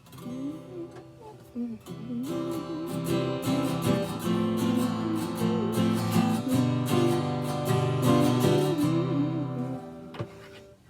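Acoustic guitar strummed in chords as a song introduction, fuller from about two seconds in and dying away near the end.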